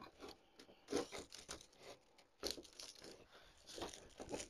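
Faint crackling and rustling of a fabric bow and dry grapevine twigs being handled, with a few short crunches as a greening pin is worked through the fabric into styrofoam.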